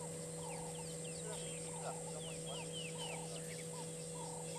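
Several wild birds calling at once: short repeated calls overlap with a run of quick, high, falling whistles, over a steady background hum.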